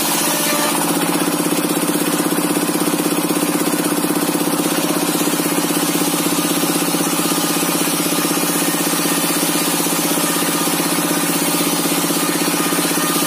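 Single-cylinder 'dompeng' diesel engine running steadily with a fast, even pulse, powering a home-built table circular saw.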